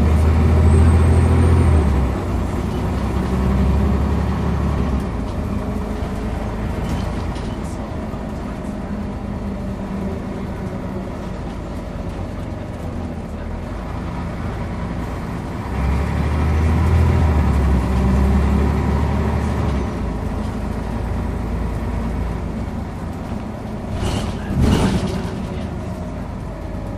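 Scania OmniCity CN94UB bus heard from inside the passenger saloon while driving. The engine pulls strongly at the start and again about sixteen seconds in, easing to steadier running over road noise in between. A short loud burst of noise comes near the end.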